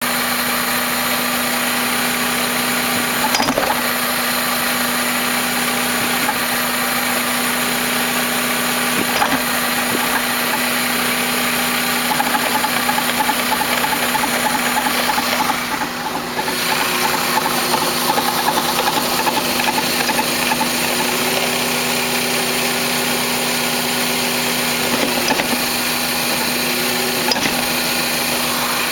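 1998 Toyota Camry's engine idling steadily, with several sharp clunks a few seconds apart as the automatic transmission is shifted between reverse and drive with the car up on jack stands.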